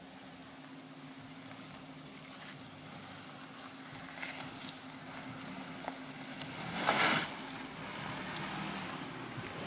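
2005 Toyota Kluger driving on an offroad track, its engine running with a steady hum, scattered clicks and knocks, and a short loud rushing burst about seven seconds in.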